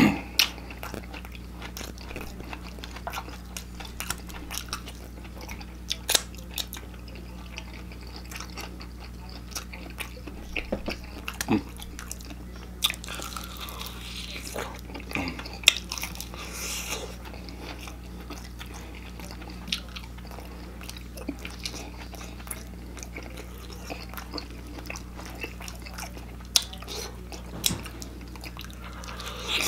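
Close-miked biting, crunching and chewing as a person eats extra-crispy deep-fried chicken legs, sharp crunches of the fried crust coming at irregular moments, over a low steady hum.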